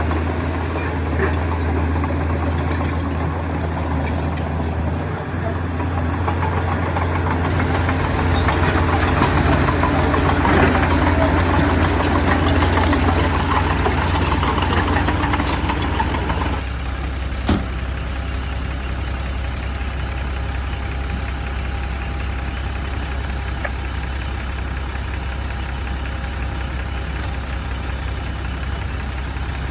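Heavy diesel engine of earthmoving machinery running under load. It grows louder and busier for several seconds in the middle, then drops suddenly to a steadier, lower running about halfway through. A single sharp knock follows shortly after.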